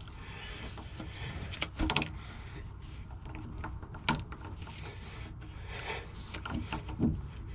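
Metal clinks and clanks of parts and hand tools as a feed mixer's screw drive is coupled back together, with a few sharper knocks spread through, over a low steady hum.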